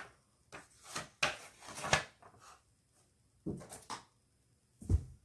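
Paper rustling and handling noises in short, irregular bursts, then a single dull thump near the end.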